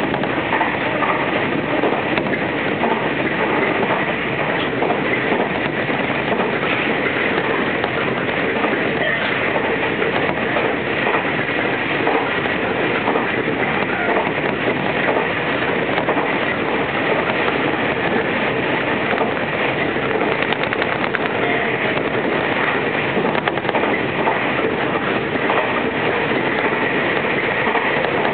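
Steady running noise of a Tobu Isesaki Line express electric train at speed, heard inside the passenger car. The wheels rumble and click over the rail joints.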